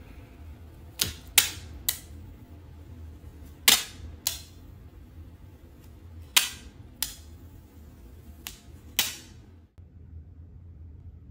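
Sharp plastic clicks and snaps, about nine of them and mostly in pairs roughly half a second apart, from the clear plastic packaging trays of iPod touch units being handled; they stop shortly before the end.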